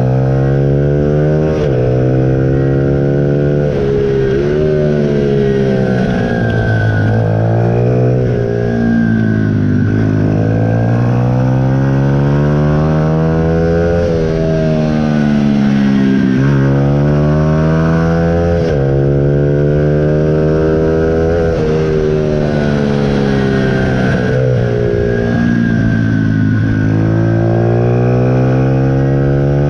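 Onboard sound of a junior supermoto motorcycle's engine at race pace, its pitch repeatedly climbing under acceleration and falling away when the rider slows for corners, with sudden drops in pitch every few seconds.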